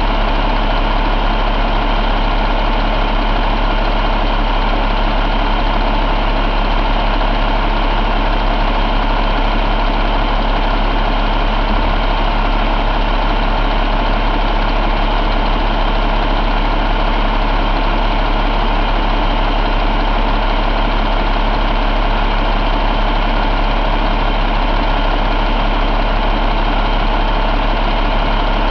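2012 Cummins ISX15 inline-six diesel engine idling steadily, with a deep, even hum.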